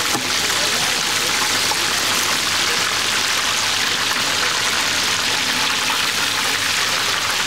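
Breaded veal schnitzels frying in a wide pan of hot oil, the oil sizzling in a loud, steady hiss.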